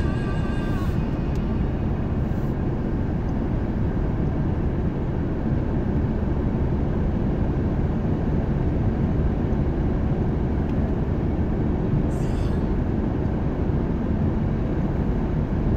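Steady low rumble of a car driving at expressway speed, heard inside the cabin: tyre and road noise on smooth asphalt with the engine beneath.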